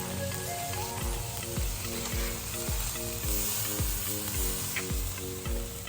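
Food sizzling on a Blackstone flat-top griddle, under background music with a steady beat of about two thumps a second.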